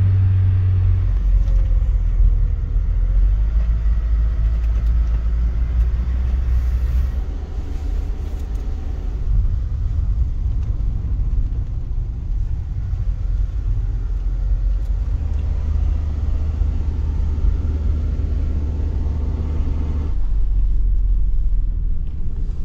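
Heavy 3.2-tonne camper van's engine droning low in first gear, heard from inside the cab, holding the vehicle back on a steep mountain-pass descent, with road rumble underneath.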